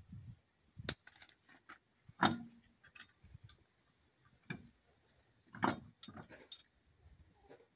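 Irregular metallic clicks and clinks of lug nuts being fitted and spun onto the studs of a steel wheel by hand. The loudest clink comes about two seconds in with a brief ring, and another comes just before six seconds.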